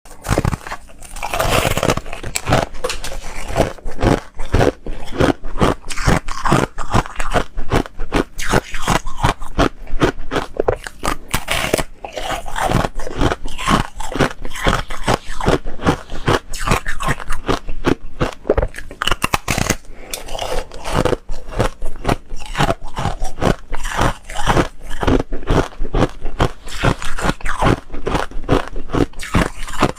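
Foam ice being bitten and chewed: a dense, continuous run of crisp crunches and crackles.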